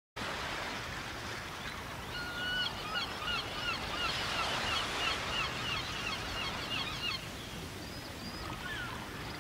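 A flock of birds calling in many short, quick chirps over a steady rush of noise like surf; the calls start about two seconds in, are densest in the middle, and thin out to a few after about seven seconds.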